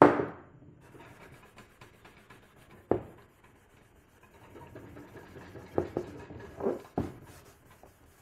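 Fine steel wool scrubbing a hazy, oxidised plastic headlight lens: a faint, continuous dry scratching, broken by a few knocks. It opens with a loud knock as a spray can is set down on the table.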